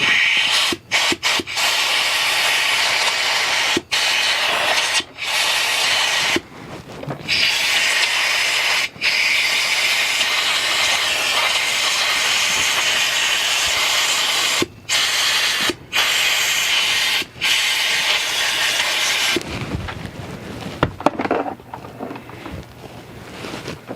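Compressed air blowing onto the opened power window switch's contacts: a loud hiss in long blasts broken by short pauses, clearing the electronic cleaner and dirt from the blackened contacts. The air stops about five seconds before the end, leaving a few light handling clicks.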